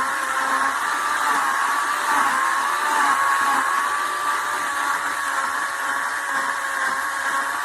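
WEN CP1518 corded 15-amp electric chainsaw running steadily, its electric motor giving a high whine that wavers slightly in pitch.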